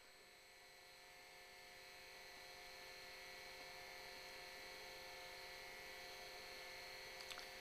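Near silence: faint steady electrical hum of room tone, with a couple of faint clicks near the end.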